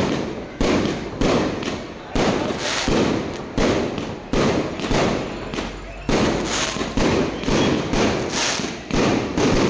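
Fireworks going off in quick succession, a sharp bang about every two-thirds of a second, each dying away before the next.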